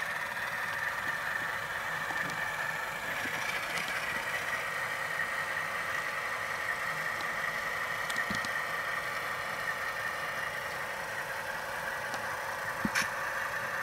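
A model diesel locomotive's Tsunami sound decoder plays a diesel engine running steadily through the model's small speaker, thin and without bass. A couple of sharp clicks come near the end.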